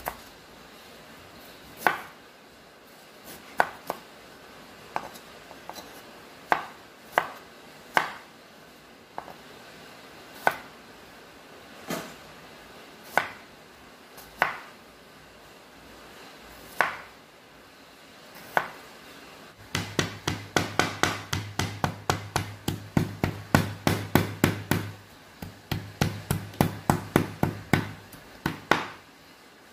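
Kitchen knife striking a cutting board: single chops every second or two, then rapid, even chopping at about four or five strokes a second for the last third.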